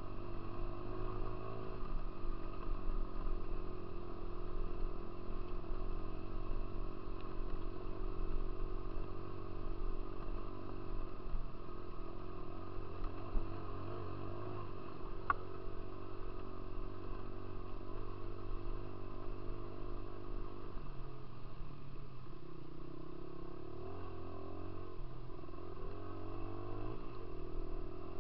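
Dirt bike engine running while riding, steady at first, then rising and falling in pitch as the throttle opens and closes in the last third. A single short click about halfway through.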